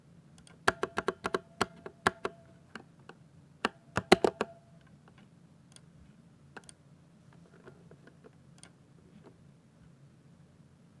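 Typing on a 60% mechanical keyboard with Ducky silver (Cherry MX Speed Silver linear) switches: a quick run of loud keystrokes in the first half, then only a few faint, scattered key presses.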